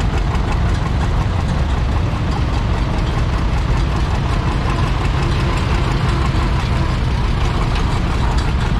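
Vintage tractor engines running steadily. The nearest and loudest is the Minneapolis-Moline tractor the recorder rides on, with another tractor passing close by.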